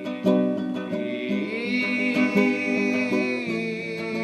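Acoustic guitar strumming chords at a steady pace between sung lines of a song.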